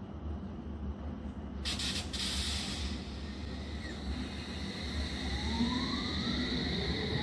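Electric multiple-unit train, a c2c Class 357, at a station under a steady low rumble: a short loud burst of air hiss about two seconds in, then the traction motors start a whine that rises in pitch as the train accelerates away.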